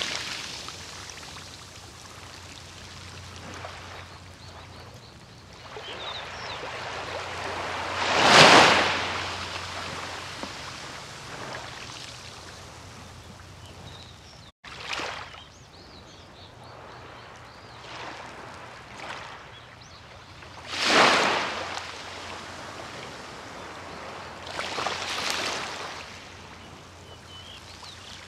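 Small sea waves breaking and washing up on a beach, one swell every few seconds over a steady wash of surf. The two biggest break about eight and twenty-one seconds in, and the sound drops out for an instant about halfway.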